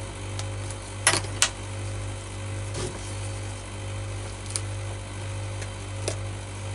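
A steady low hum with light clicks of small metal instruments, a scalpel and forceps, being handled: two sharp clicks about a second in and a few fainter ticks later.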